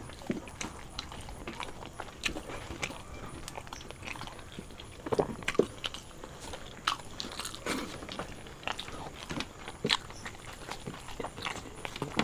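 Two people eating paratha and dum aloo with their hands: irregular chewing and mouth sounds, with scattered soft clicks and taps as the flatbread is torn and fingers scoop potato curry from plates.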